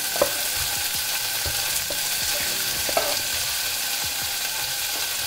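Onions sizzling in hot oil in a frying pan as they are sautéed and stirred, a steady hiss with a few brief clicks.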